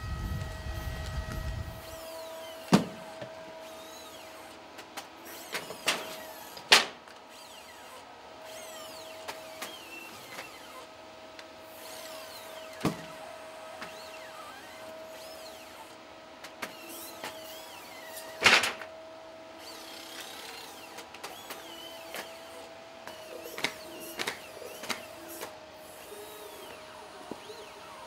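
Atlas humanoid robot running with a steady, high whine from its hydraulic power unit, broken by several sharp knocks and clanks as its feet step and its hands grip and set down a cardboard box.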